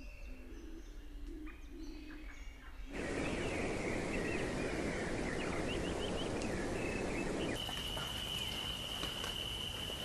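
Edited nature ambience of bird calls that changes at each cut. At first there are sparse chirps and low notes. About three seconds in comes a louder, dense noisy stretch with quick rising bird chirps over it. After about seven and a half seconds a steady, high insect-like drone takes over, with scattered chirps.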